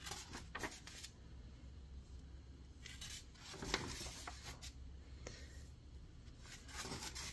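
Faint paper rustling as pages of a softcover activity book are turned and pressed flat by hand, in a few brief crinkles that are loudest around the middle.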